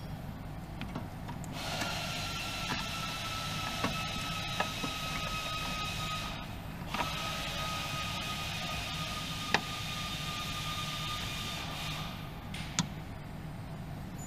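A machine running with a steady whine over a hiss, in two runs of about five seconds with a short break between, and a few light clicks.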